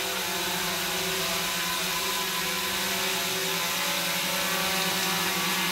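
Quadcopter drone hovering, its propellers giving a steady, even whine.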